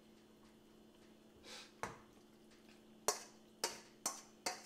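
A metal spoon scraping and knocking against a stainless-steel colander as cooked macaroni is scraped into a pot: a soft scrape, then five sharp clinks spaced about half a second to a second apart.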